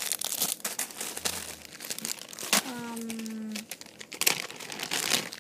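Plastic crinkling and rustling as squishy toys are handled, with scattered clicks and taps. A short held tone sounds about halfway through.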